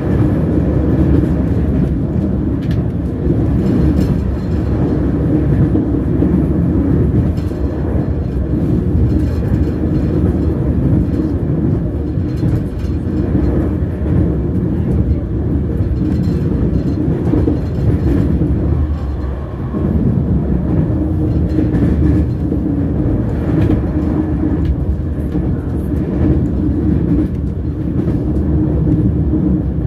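Train wheels running on the rails: a steady, loud rumble with scattered faint clicks.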